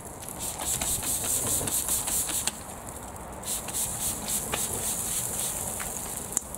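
Water from a hand spray bottle hissing onto a burning air fryer in two long spells, about half a second in and again from about three and a half seconds, over the crackle and pops of the fire, with one sharp pop near the end.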